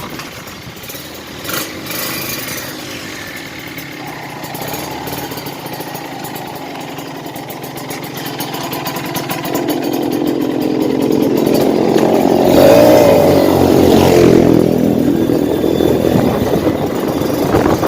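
Kawasaki Ninja RR two-stroke engine running under way with wind buffeting the microphone. The engine note swells from about halfway through and is loudest a few seconds later, its pitch rising and falling. It pulls without the rough, snoring stutter it had after the exhaust change.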